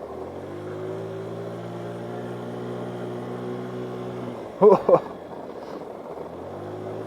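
GY6 50cc scooter's four-stroke single-cylinder engine under throttle, its pitch climbing steadily for about four seconds before the revs fall away. Just under five seconds in, two loud short vocal yelps cut over it. The engine picks up again near the end.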